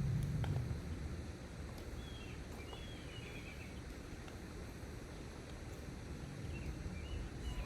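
Birds chirping a few short calls over a steady low rumble, the rumble louder for the first half-second.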